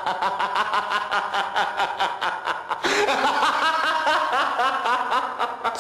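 A man laughing loudly in rapid, unbroken pulses. About three seconds in, the laughter grows fuller, with higher rising-and-falling peals.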